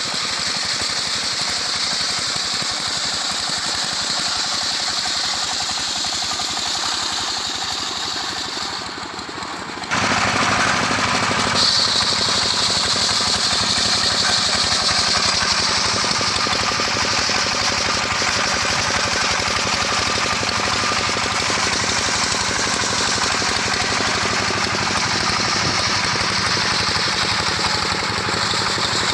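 Homemade circular-saw sawmill running and sawing a mango log into boards. The machine noise is steady, then grows louder about ten seconds in, with a high whine that holds for the rest of the cut.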